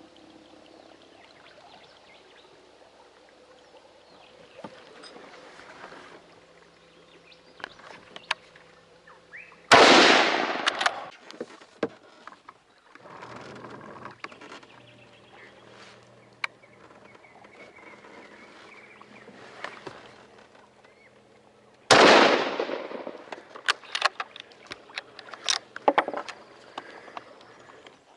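Two gunshots about twelve seconds apart, each a sudden loud crack that dies away over a second or so. A scatter of small sharp clicks and knocks follows each shot.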